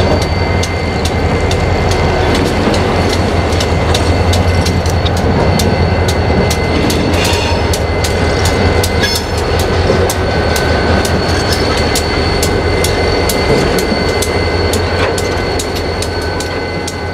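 Two diesel-electric locomotives running light past at low speed. Their engines give a steady low drone over a rapid run of clicking from the wheels over rail joints and switchwork. The sound fades a little near the end as they move off.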